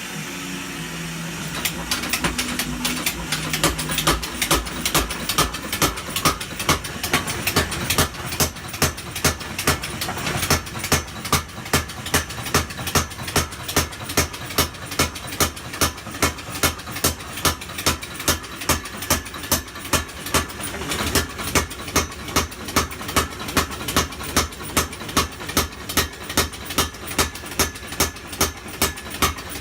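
Custom-built mechanical power hammer running, its ram striking the anvil in a steady rhythm of about two to three blows a second. A motor hum is heard at the start, and the blows set in about two seconds in.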